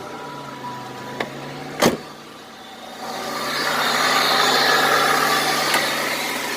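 A 1995 Buick Regal being started: a steady warning chime stops about a second in, a sharp knock comes just before two seconds, then the engine runs at idle with a whirring noise building from about three seconds. The whir comes from a worn air-conditioning compressor bearing, which the owner calls loud.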